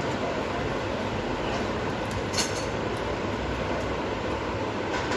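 Steady mechanical rumbling noise, with one sharp metallic clink about two and a half seconds in.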